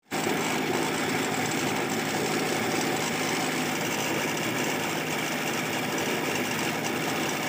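Homemade waste-oil burner running: a steady rush of air and flame with the even hum of the small electric blower feeding air into the burner pipe.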